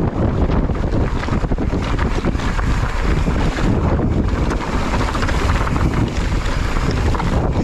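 Strong wind buffeting the microphone while riding, a loud, steady rumble with uneven gusts.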